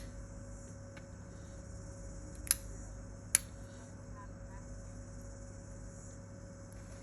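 Two sharp light taps a little under a second apart, with a fainter one before them, from a phone being handled and its touchscreen tapped, over a steady low room hum.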